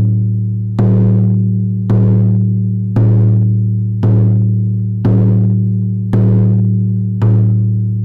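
Meditation background music: a deep, ringing drum struck steadily about once a second, seven beats, each stroke's low hum ringing on into the next.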